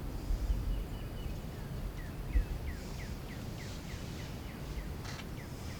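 A songbird singing a run of short, falling whistled notes, about three a second, starting about two seconds in, over a low rumble of wind or handling noise. There are a couple of sharp clicks near the end.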